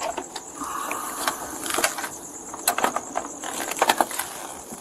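Irregular sharp clicks and crackling rustles over a steady faint high hiss.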